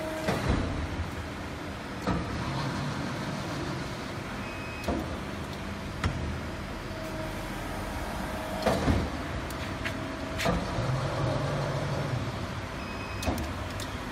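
CNC hydraulic press brake running: a steady mechanical hum with sharp clicks and knocks every one to three seconds, the loudest about nine seconds in.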